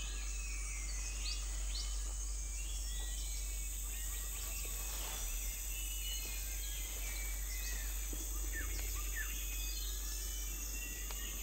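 Tropical forest ambience: a steady, high-pitched insect drone with many short bird chirps and calls scattered through it.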